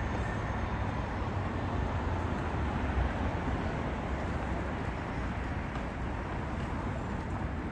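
Steady road-traffic rumble of cars passing on a multi-lane city road.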